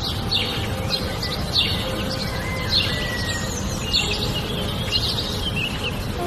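Steady low rumble of falling water, with small birds chirping over it about once a second.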